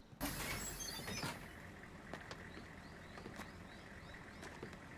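Outdoor ambience from the anime's soundtrack: a steady hiss with small birds chirping in short rising chirps, opening with a sudden rush of noise that lasts about a second.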